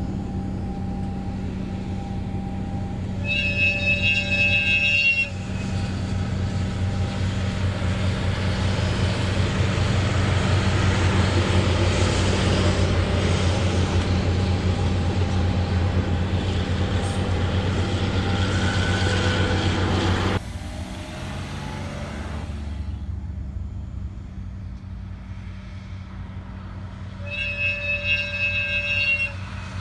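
A DE10 diesel-hydraulic locomotive hauling 12 series passenger coaches: a horn blast of about two seconds, then the loud passing rumble of the diesel engine and the rolling wheels. The sound drops suddenly about twenty seconds in, and a second horn blast of about two seconds comes near the end over the steady engine hum.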